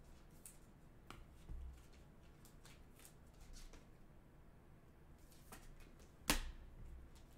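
Trading cards handled and flipped through by hand: faint scattered ticks and slides of card stock, with one sharp snap about six seconds in.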